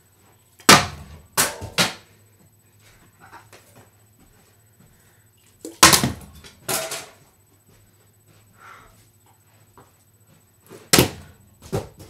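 Remote controls thrown into a running electric fan: three rounds of loud knocks, each a hard hit followed by one or two smaller clattering knocks, over a faint steady low hum.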